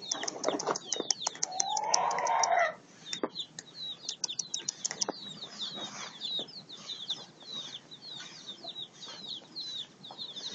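Young chicks peeping: a continuous string of short, high, falling peeps, several a second. About two seconds in, a louder, noisier sound lasting under a second stands out over them.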